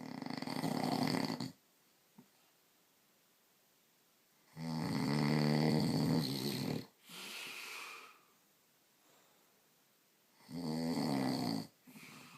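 A man snoring loudly in his sleep. There are three long snores about five seconds apart, each lasting one to two seconds, and the second and third are each followed by a softer breath.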